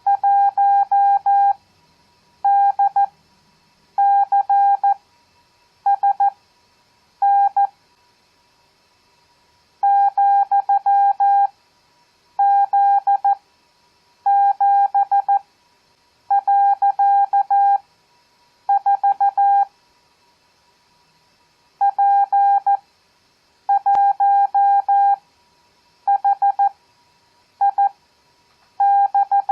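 Morse code (CW) practice tone keyed in five-character groups of random letters, numbers and punctuation, sent at 14 words per minute with Farnsworth spacing at 7 words per minute. One steady-pitched beep in dots and dashes, with clear pauses between characters and a longer pause after each group of five; about two and a half groups are heard.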